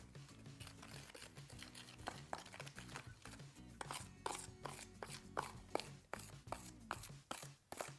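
A tool stirring and scraping thick cement-based tile adhesive paste in a container: irregular clicks and scrapes, busier and louder from about halfway through. Quiet background music with low held notes plays underneath.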